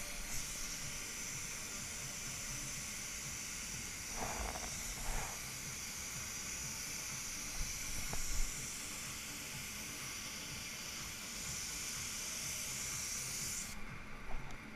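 Gravity-feed paint spray gun hissing steadily with the trigger held as it sprays paint, then cutting off sharply near the end when the trigger is released.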